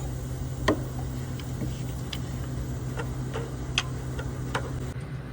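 Sharp, irregular metallic clicks of hand tools working on the engine, about nine of them a few tenths of a second to a second apart, over a steady low hum.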